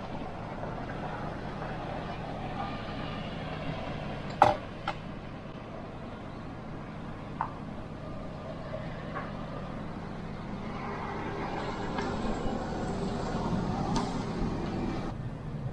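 Small hand tool clicking as a coaxial antenna cable is trimmed, with one sharp click about four seconds in and a few fainter ones after it. Under it runs a steady hum of distant traffic, which swells slightly near the end.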